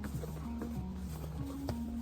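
Background music: a slow melody of held low notes stepping up and down, with a few faint taps.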